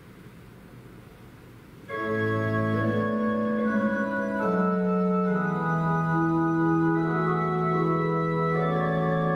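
Church organ begins playing about two seconds in, sounding slow, sustained chords over a held bass note. Before it there is only faint hiss.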